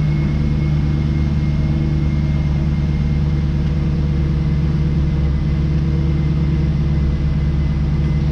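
2002 Pontiac Trans Am WS6's LS1 V8 idling steadily, with a faint steady high tone over it.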